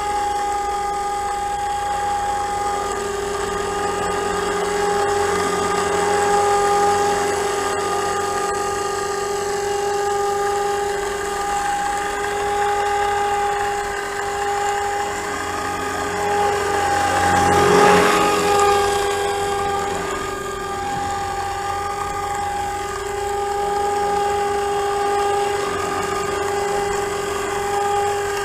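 Forza 450 RC helicopter hovering: a steady whine from its rotors and drivetrain, with a brief swell about two-thirds of the way in. The rotor noise carries an abnormal sound that the owner traced to a partly stripped main gear.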